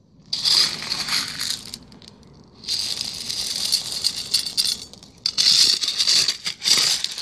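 Small gravel scooped with a metal spoon and poured out, in three bursts of a second or two each.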